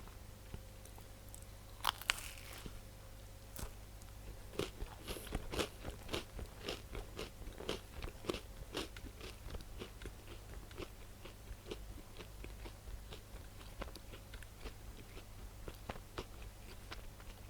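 A person eating pizza: a sharp, crackly bite into the crust about two seconds in, then chewing with crisp crunches about two to three a second, growing fainter in the second half.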